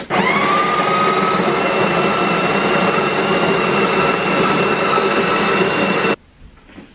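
Breville Barista Express's built-in burr grinder grinding espresso beans into the portafilter: a steady motor whine that rises briefly in pitch as it starts, then cuts off suddenly about six seconds in.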